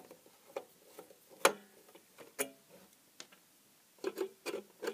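Screwdriver turning small screws out of the metal base plate of a plastic-cased impulse heat sealer: a series of separate light clicks and ticks, the loudest about a second and a half in, with a quicker cluster of clicks near the end.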